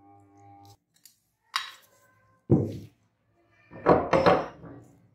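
Metal clinks and clunks of a cast aluminium meat grinder being dismantled by hand: a couple of sharp clinks, a heavy clunk, then a cluster of knocking and scraping near the end as the candy-clogged feed screw is worked out of the barrel.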